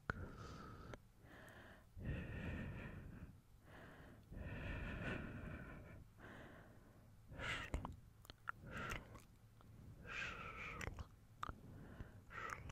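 Close-miked ASMR breath sounds: slow, breathy exhales and blowing into the microphone, followed by shorter breaths mixed with small wet mouth clicks.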